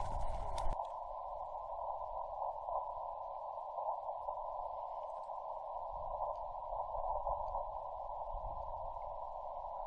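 Yaesu FT-891 HF transceiver putting out steady receiver hiss and band noise, squeezed into a narrow midrange band by its CW filter, as the operator listens for Morse code calls. No strong keyed Morse tone stands out. There are a few faint clicks in the first second.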